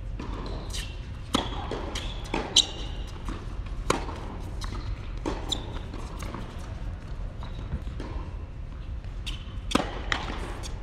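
Tennis ball struck by rackets and bouncing on an indoor hard court: sharp pops a second or more apart, the loudest about two and a half seconds in and another near the end, over a steady low hum.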